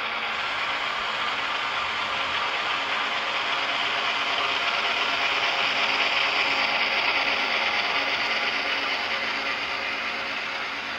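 HO scale model train, an F7 A/B diesel locomotive pair and freight cars, rolling along the track with a steady mechanical whirring and rattling of motor, gears and wheels. It grows louder to a peak about halfway through as the locomotive passes close by, then eases as the freight cars follow.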